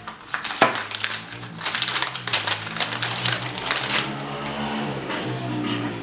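A quick run of clicks and crinkles from a folding knife and its packaging being handled, over quiet background music.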